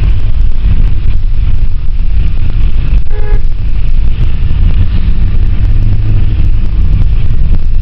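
Steady low engine and road rumble heard from inside a moving passenger van, with one short car-horn beep about three seconds in.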